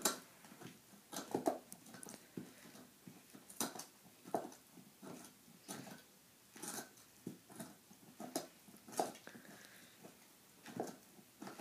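Young Saint Bernard gnawing a large bone: irregular sharp cracks and scrapes of teeth on bone, about one a second.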